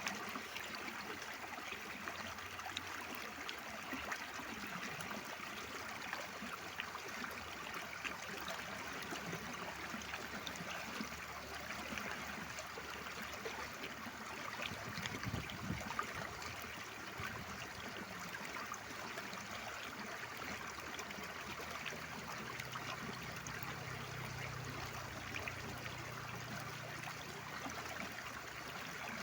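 Mountain stream water flowing steadily, an even, continuous rush and trickle.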